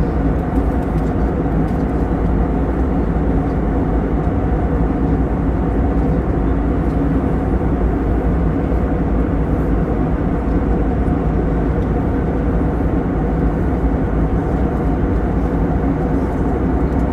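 Airbus A321 cabin noise in flight: the steady roar of airflow and jet engines heard from a window seat, with its weight in the low range and no change in level.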